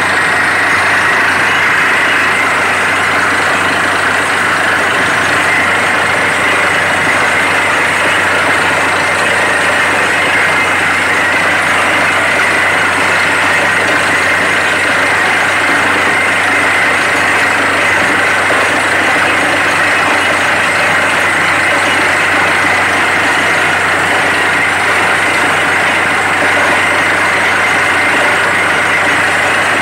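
Truck-mounted borewell drilling rig running steadily and loudly under load while drilling. Its engine and air compressor drive the drill, and muddy water and rock cuttings are blown up out of the borehole.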